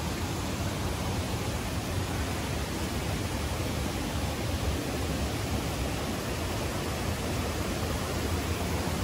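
Steady rushing of a fast mountain river, the Kibune River, as an even roar with no breaks, mixed with low wind buffeting on the phone's microphone.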